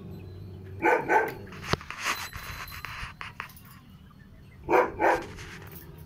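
Two loud double calls from an animal, one about a second in and another near the end, with a sharp click and some rustling between them.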